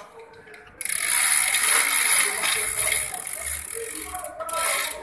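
Hand ratchet clicking rapidly as the valve-clearance adjuster on an engine's rocker arm is turned. It starts about a second in and runs for about two and a half seconds, then clicks again briefly near the end.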